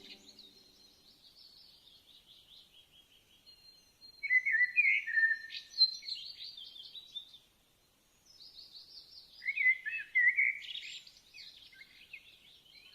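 Songbirds singing and chirping in quick high trills, with two louder bursts of song, one about four seconds in and another about nine seconds in.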